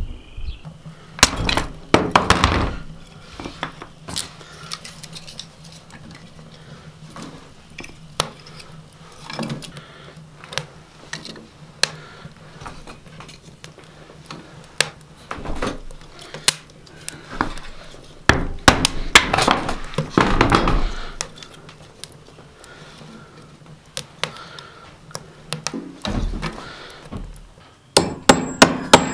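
Scattered knocks and clinks of split firewood and kindling being put into a steel wood stove, with a few stretches of rustling. Near the end a hammer starts tapping a nail into wooden wall boards with quick, even blows, about two or three a second.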